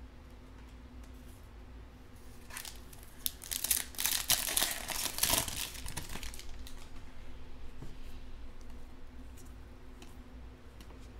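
The foil wrapper of a Panini Mosaic football card pack being torn open and crinkled by hand. It is a noisy rustle that starts a couple of seconds in and lasts about four seconds, loudest in the middle.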